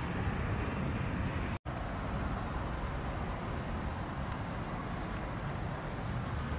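Steady low outdoor background rumble with no distinct event, cut off for an instant about one and a half seconds in.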